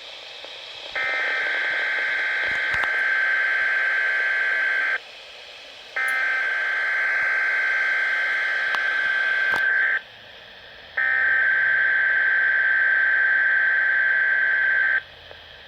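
Weather radio sending its SAME (Specific Area Message Encoding) header three times: three bursts of rapid two-tone data, each about four seconds long and a second apart. This is the digital header that opens a Required Weekly Test and triggers alert-equipped weather radios.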